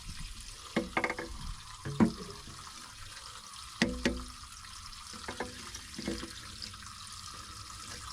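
Artesian well water running steadily out of the pipe, with several sharp knocks and clatters of pipe fittings being handled and fitted, the loudest about 2 and 4 seconds in.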